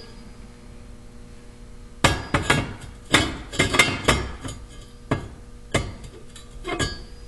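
Steel square tubing clanking and knocking against a welded steel frame as a removable slide-in piece is handled and worked loose. It is a quick, uneven run of sharp metal knocks and clinks, starting about two seconds in.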